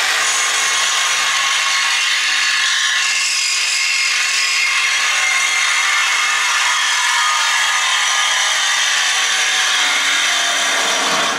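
Power saw cutting through the car's factory exhaust pipe, a loud, steady, unbroken cutting noise that starts abruptly and stops near the end.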